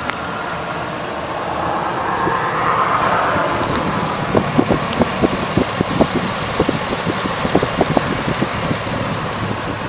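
Chevrolet 6.0-liter Vortec V8 idling steadily with the hood open. From about four seconds in, a scatter of short irregular clicks sits over the steady hum.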